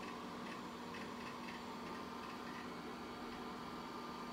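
Apple Macintosh Quadra 950 running with a steady hum and whine from its fan and drive, with a run of soft, irregular ticks in the first half from its hard drive seeking as Mac OS loads.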